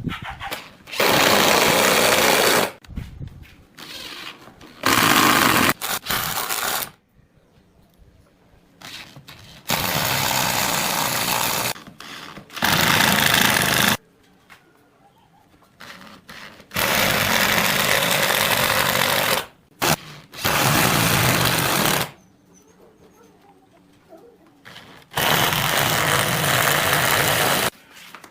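A power tool running in about eight separate bursts of one to three seconds each, at a steady level while on, with quiet gaps between.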